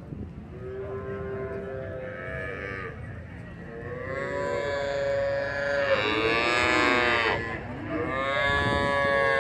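Cattle mooing: three long drawn-out calls one after another, the middle one the loudest, over a steady low background noise.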